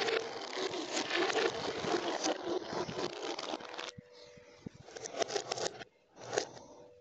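Marbles rattling and scraping along a homemade marble run of plastic straws and tubing for about four seconds. Then come a few scattered clicks, and glass marbles clack briefly in a bin about six seconds in.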